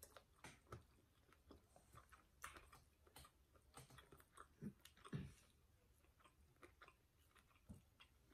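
Faint chewing of food, with scattered small clicks and smacks, a couple of them a little louder about five seconds in.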